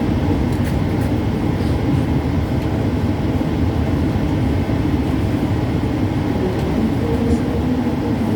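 Passenger train coach running along the track, a steady low rumble heard from inside the carriage.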